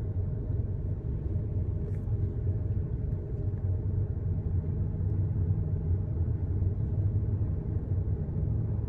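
An idling car engine: a steady low rumble with a constant hum that does not change.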